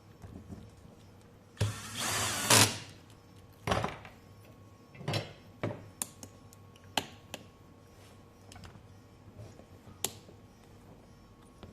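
A small power screwdriver runs in one burst of about a second, followed by several sharp clicks and knocks spread over the next eight seconds.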